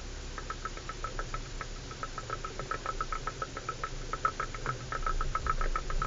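Something loose inside a 4x4 rattling as it drives over a rough gravel track: a rapid, uneven ticking with a steady low engine and road rumble underneath. It grows louder near the end.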